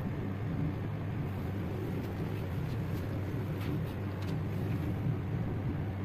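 Steady low background rumble, with a few faint scratchy rustles in the middle.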